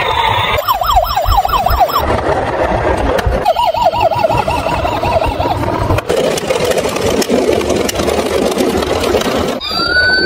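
Electronic siren sound effects from battery-powered toy police cars such as a Tonka Police car: a fast up-and-down yelp about half a second in, a slower wail around three and a half seconds in, then a busy jumble of toy sound effects, and near the end a new siren starting with a rising tone.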